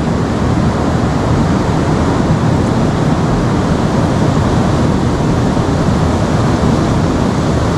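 Steady rushing of river water, an even noise with no breaks.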